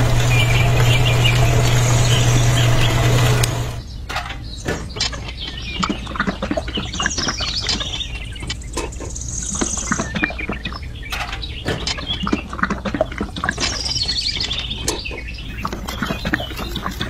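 Small electric motor of a miniature model cement mixer running with a steady hum, cutting off suddenly about four seconds in. Then many small clicks and scrapes of wet concrete and grit being tipped out and poured, with birds chirping throughout.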